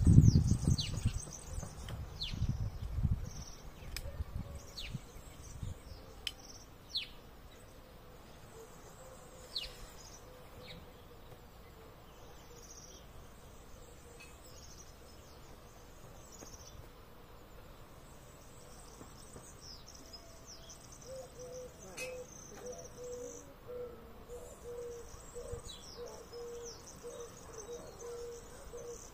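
Small birds calling outdoors in short, high, falling chirps, over a steady high insect buzz. A few low thuds come in the first seconds, and a faint steady hum joins about two-thirds of the way through.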